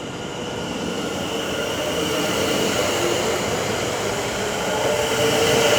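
Two coupled Class 730 Aventra electric multiple units pulling away from a station platform, the traction motor whine and the wheels on the rails growing steadily louder as the train accelerates.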